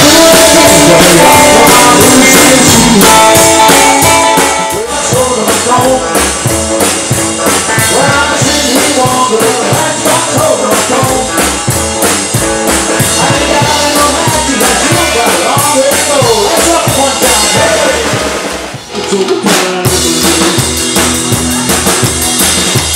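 Live band of upright double bass, drum kit and electric guitar playing, driven by a steady drum beat. The music dips briefly about four-fifths of the way through, then carries on.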